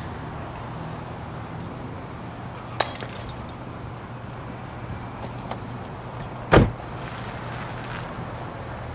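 A glass beer bottle smashing on pavement about three seconds in, the shards tinkling briefly, then a second sharp, louder impact a few seconds later. A steady low hum of a car engine running sits underneath.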